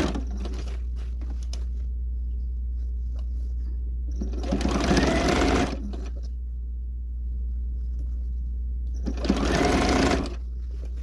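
Bernina 130 sewing machine stitching through a denim jeans hem in two short runs, one about four seconds in lasting about a second and a half and one about nine seconds in lasting about a second, with a steady low hum between them.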